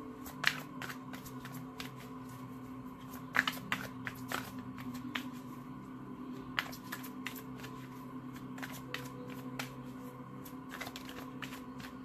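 A Romance Angels oracle card deck being shuffled by hand: a run of irregular card clicks and snaps, with a few sharper snaps about half a second, three and a half and six and a half seconds in.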